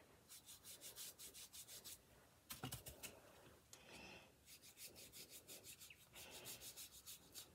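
Faint, quick strokes of paintbrush bristles dabbing and rubbing paint onto a modeling-clay eclair, about four a second, with one soft knock about two and a half seconds in.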